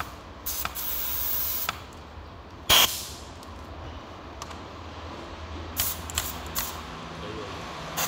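Workshop sounds from work on a wheel loader's gear assembly: a hiss of about a second near the start, then one loud sharp metallic knock with a short ring about three seconds in, and a few lighter clicks and taps later, over a low steady hum.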